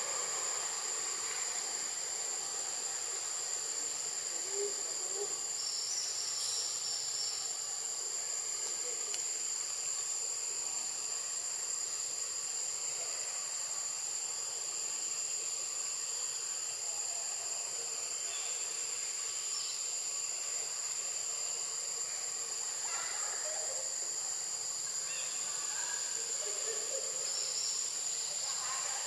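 Steady high-pitched insect drone. A second, slightly lower insect chorus joins for a couple of seconds twice, about a fifth of the way in and near the end.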